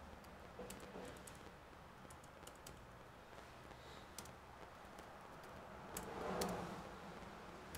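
Keys tapped irregularly on a laptop keyboard, a scattering of faint clicks with pauses between, and one louder knock a little past six seconds in.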